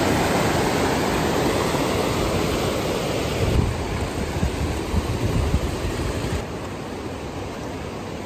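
Fast mountain river rushing over rocks in whitewater: a steady, dense rush of water, heard close up. A few low thumps come near the middle, and the rush grows softer about six seconds in.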